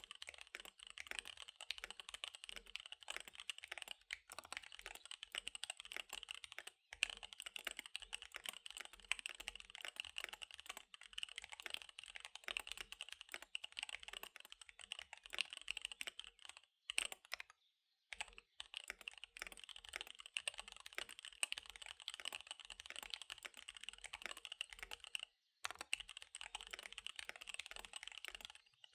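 Fast typing on a KBD75 V3 mechanical keyboard with SP-Star Dark Magic Girl tactile switches and DSA keycaps: a dense, quick run of key clacks, broken by a short pause a little past halfway and another brief one near the end.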